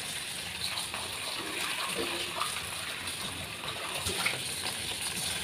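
Beaten egg and bread slices sizzling in butter in a frying pan, a steady hiss.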